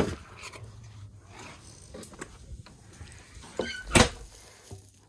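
Door of a wheeled ice-fishing house: a sharp latch click, then about three and a half seconds later a short squeak and a heavy thump as it is pulled shut.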